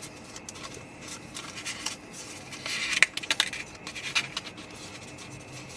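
Cardstock scraping and rustling as the pull tab of a paper waterfall card is worked and its panels flip over, with a few light clicks. The sound is loudest a little before halfway through.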